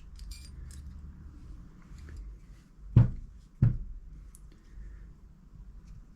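Light metal clicks, then two sharp knocks a little over half a second apart, as the brake master cylinder's spring and internal parts are handled and refitted into the cylinder.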